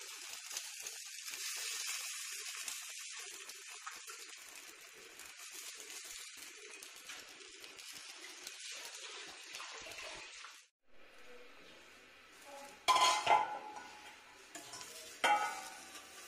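Wo, a black-lentil patty with an egg on top, sizzling on a hot flat pan: a steady high hiss. About ten seconds in the sizzle drops away and goes quieter, and then a metal spatula clatters against the pan twice as it is worked under the patty.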